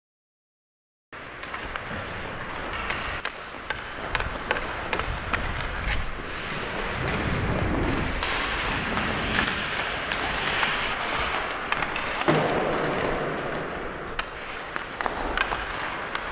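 Ice hockey skate blades scraping and carving on the ice, with frequent sharp clicks of a stick handling a puck. The sound cuts in suddenly about a second in.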